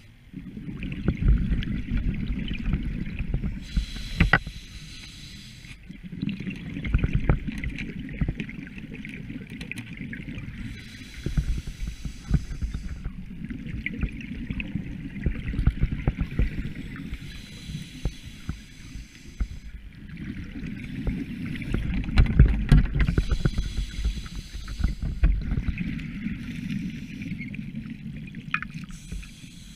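Scuba regulator breathing heard underwater: a long hiss and low rumble from the breath, then a spell of bubbling noise. The cycle repeats roughly every six seconds.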